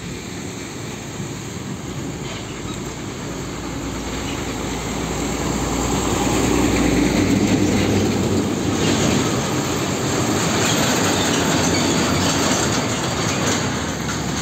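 Heavy diesel trucks driving past on a road: engine and tyre rumble builds to its loudest about halfway through as a truck comes close, then holds.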